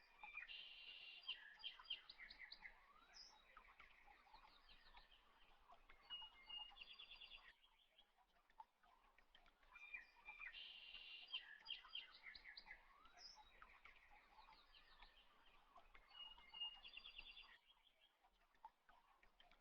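Faint bird-like chirps and short trills. The same run of calls repeats about every ten seconds, with a short lull between runs.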